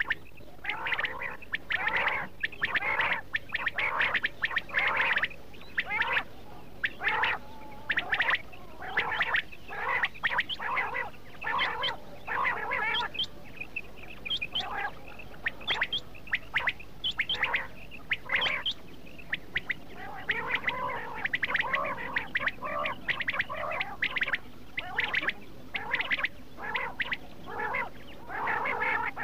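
Quail calling: many short, quickly repeated calls, several a second, overlapping without a break.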